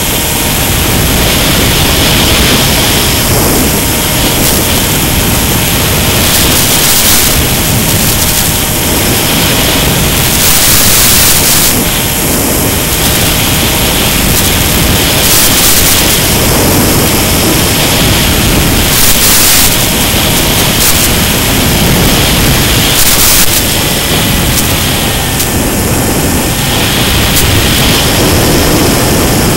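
Mini Skywalker RC plane in flight, heard through its FPV audio as a loud, steady rush of wind and hiss, with a faint whine from its electric motor. Short bursts of static come every few seconds.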